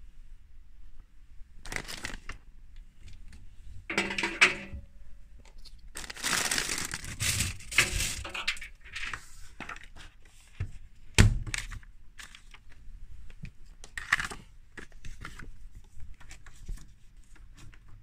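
Irregular rustling and scraping handling noises in bouts, with a sharp knock about eleven seconds in.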